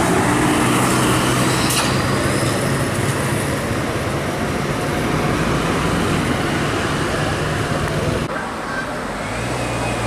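Tour coach passing close by on a bend, its diesel engine running steadily under tyre and road noise. About eight seconds in, the sound changes abruptly to another vehicle's steady engine note.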